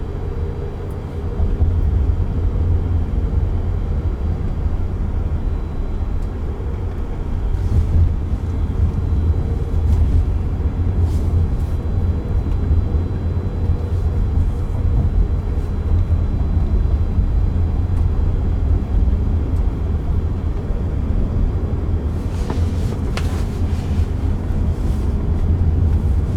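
Steady low road and tyre rumble inside the cabin of a moving Waymo robotaxi, with a few light clicks and knocks near the end.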